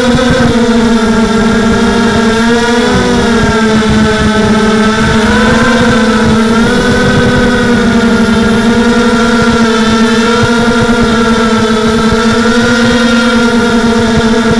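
Tarot Robocat 280 FPV quadcopter's motors and propellers whining loudly, heard close up from the onboard camera, the pitch wavering a little as the throttle changes in flight.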